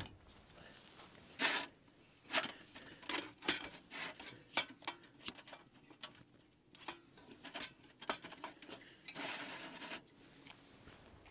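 A red hurricane oil lantern being handled and lit: scattered light metal clicks and clanks as its parts are worked, then a short hiss about nine seconds in, just before the wick is burning.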